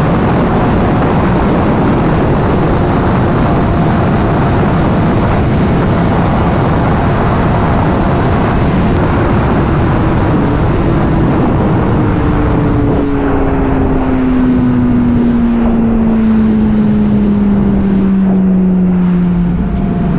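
Honda CBR600RR inline-four sport bike engine under way, heard from the rider's position with heavy wind rush. In the second half the engine note falls slowly and steadily as the bike slows.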